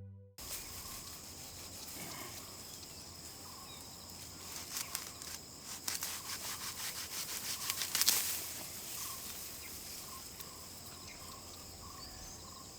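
Rural field ambience with a steady, high insect trill. In the middle comes a run of quick rustling scrapes, loudest about eight seconds in.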